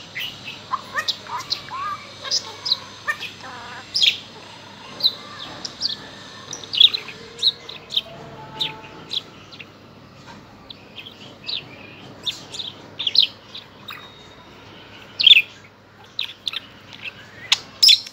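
Pet budgerigar chattering and chirping: sharp, scattered chirps with warbled chatter between them, including a mimicked "watcha doing" near the start.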